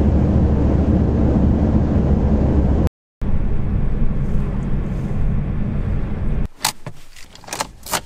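Steady low road and engine rumble of a car heard from inside the cabin while driving, with a short cut about three seconds in. From about six and a half seconds the rumble stops and a run of sharp clicks and key jingling follows inside the stopped car.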